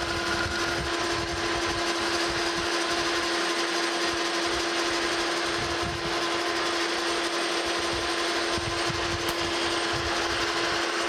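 Metal lathe running steadily while its cutting tool faces the end of a steel rod: a constant tone from the machine's drive under an even hiss from the cut.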